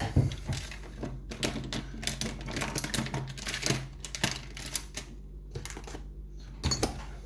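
Rapid, irregular clicking and tapping as the EVVA mortice lock cylinder and small tools are handled during disassembly, busiest from about a second in to five seconds, with a short burst of clicks near the end.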